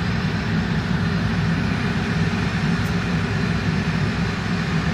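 Steady low rumble of heavy engines running, with a faint high whine above it.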